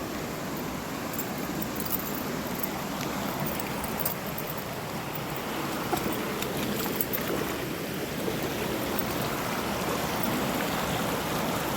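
A rainforest river running over rocks: a steady rush of flowing water that grows slightly louder toward the end.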